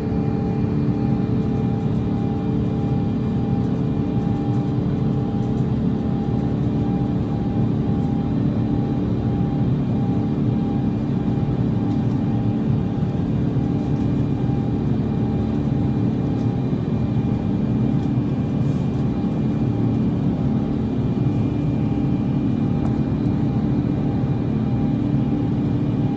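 Steady airliner cabin drone of an Airbus A350 in flight: its Rolls-Royce Trent XWB engines and the airflow as heard inside the passenger cabin, with a few faint steady tones held over the noise.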